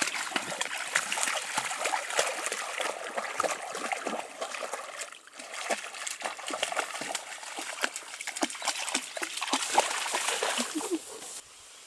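Black Labrador splashing as it wades through shallow pond water among reeds: a busy, irregular run of splashes and drips that eases briefly near the middle and stops suddenly shortly before the end.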